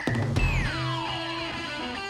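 Background music led by electric guitar, with a long falling slide in pitch starting about half a second in.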